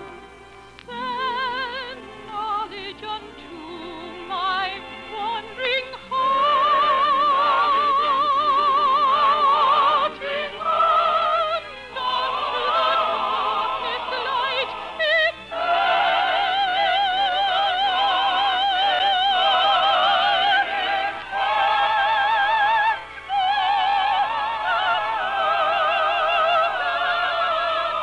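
Operetta singing: a trained voice with wide vibrato over orchestral accompaniment, with the thin, band-limited sound of an early-1950s radio broadcast recording. Soft and halting at first, it swells to full, sustained high notes about six seconds in.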